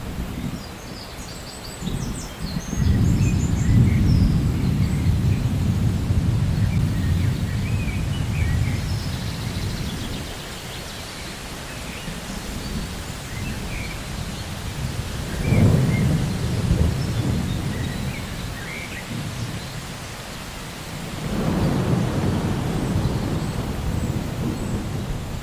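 Steady rain falling with rolling thunder: a long low rumble sets in about three seconds in and slowly fades, another swells up around the middle, and a third builds near the end.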